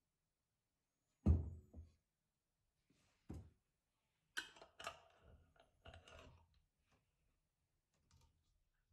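A glass bottle set down with a heavy thud on a wooden table, then a lighter knock about two seconds later. A screw-top lid is placed on a small glass jar and twisted shut, a quick run of clicks and scrapes, with a few faint ticks near the end.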